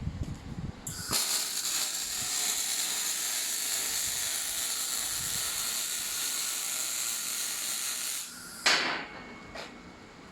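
MIG welding arc from a Torros MIG 200 Pulse semi-automatic welder: a steady crackling hiss lasting about seven seconds, then cutting off. A sharp knock follows soon after.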